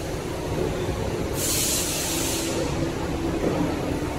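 CNC turret punch press running with a steady mechanical hum and no punching strokes. About a second and a half in, compressed air hisses for about a second, and a faint whine joins the hum after it.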